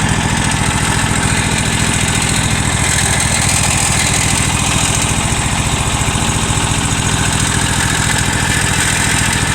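An engine idling steadily, with a fast, even firing beat.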